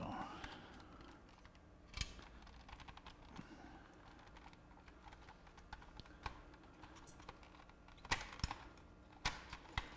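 Light, scattered clicks and taps from hands working the Pioneer PD-DM802 CD changer's plastic disc magazine and loading mechanism, pushing at a wedged disc tray to free it, with a quick cluster of sharper clicks near the end.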